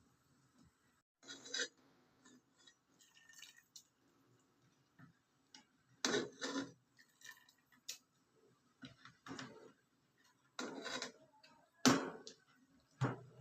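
Kitchenware being handled: dishes, glass and utensils clinking and clattering in short, irregular knocks about every second or two.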